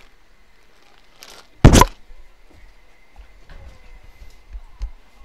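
A single loud, sudden thump a little under two seconds in, followed by a few faint knocks later on.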